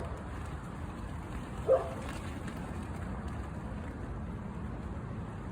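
Gusty wind rushing steadily over the microphone, with one short, sharp animal call a little under two seconds in.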